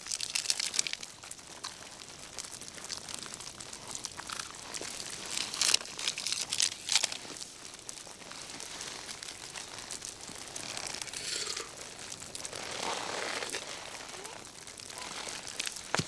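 Irregular crinkling and rustling of nylon: a down sleeping bag and rain jacket moving as a person shifts and works with her hands. A few louder crackles come about six to seven seconds in.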